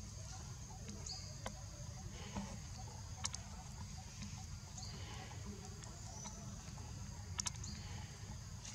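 Outdoor ambience of a steady high insect drone over a low rumble. It is broken by a few sharp clicks, a pair of them near the end, and by short high chirps.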